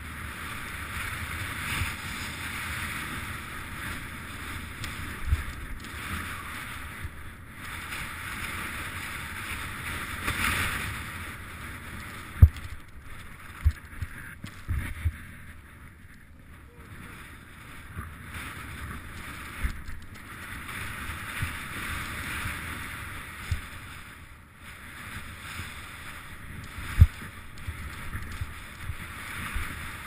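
Snowboard sliding and carving through deep powder snow: a steady hiss that swells and fades with the turns, broken by several sharp, low thumps from bumps in the snow.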